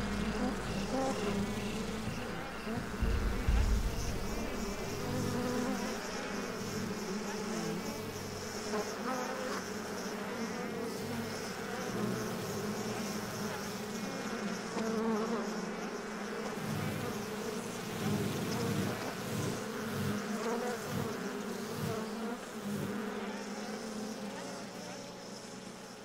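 Bees buzzing among almond blossom, several at once, their pitch wavering as they fly about. The buzzing fades out near the end.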